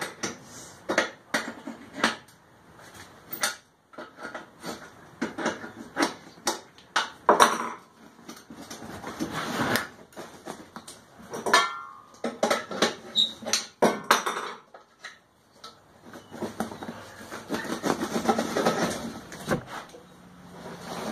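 Metal clinks, knocks and scrapes of a hand tool working the burner mounting screws on a steel propane forge shell, loosening them so the burners can come off. A brief squeak about twelve seconds in, and more scraping and rustling near the end.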